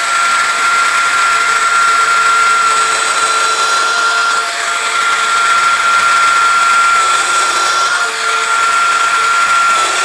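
Festool Domino XL DF 700 joiner running steadily with a high whine while it plunge-cuts a row of mortises into a wooden board. Its tone shifts slightly a few times as it cuts.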